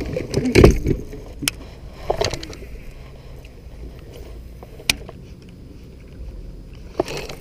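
Heavy bumps and rubbing on a chest-worn camera as the angler moves on the boat deck, then a low steady rumble with a few sharp clicks.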